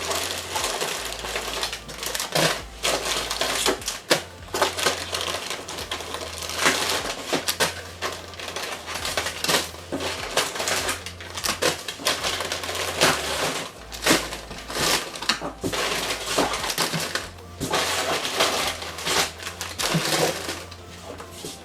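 Snack packets and boxes rustling, crinkling and clattering as they are handled and put away, with many small irregular knocks, over a low bass line of background music.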